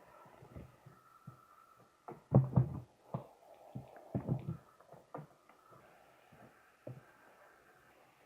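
Light knocks and clicks of a 1:18 scale model car's parts being handled, the loudest cluster about two and a half seconds in and another around four seconds in.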